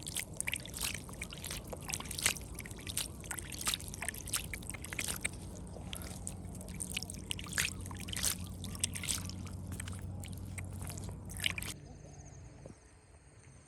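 Water splashing and trickling in quick, irregular spatters over a steady low hum, which both drop away sharply near the end.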